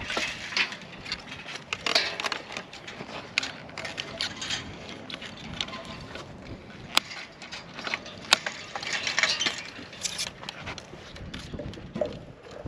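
Knipex pliers cutting old fence wire wrapped around a wooden post: a run of snips and clicks, with two sharper snaps a little over a second apart past the middle, amid the jangle and scrape of loose wire being pulled off.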